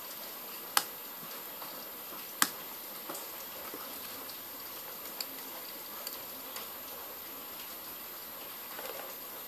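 Small sharp clicks and taps as a smartphone's plastic back housing and internal parts are handled and pulled apart, two louder clicks close together near the start, then a few faint ticks, over a steady background hiss.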